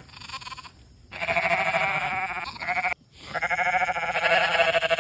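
Sheep bleating: two long, quavering bleats, the first about a second in and the second just after the middle.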